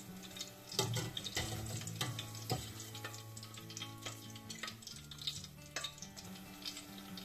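Soft background music over the irregular crackle and popping of eggplant frying in hot oil, with a few louder pops about a second in and halfway through.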